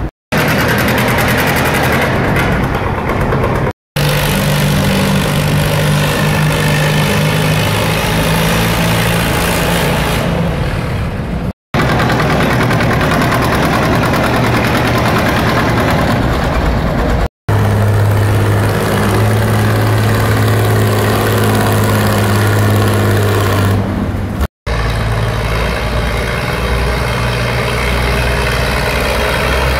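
Antique farm tractor engines running hard under load while pulling a weight-transfer sled, in several short stretches that break off suddenly where clips are cut together.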